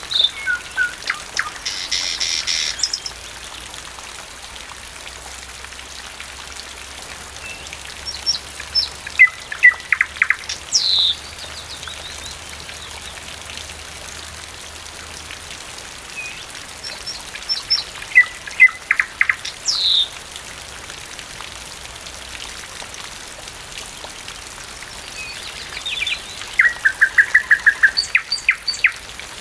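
Thrush nightingale singing over steady rain: four short song phrases about nine seconds apart, each a run of rapid repeated notes with a sharp falling whistle, the last ending in a fast even trill.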